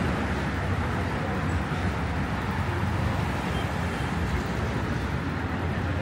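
Steady road traffic: a constant low rumble of passing vehicles under an even hiss, with no single vehicle standing out.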